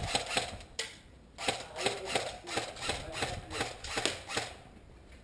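Electric airsoft gun firing full-auto at a slow, sluggish rate of about five shots a second, its gearbox labouring, which the players take for a flat battery.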